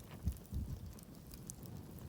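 Wood campfire crackling, with scattered small pops and ticks. Two low thumps about a quarter and half a second in are the loudest sounds.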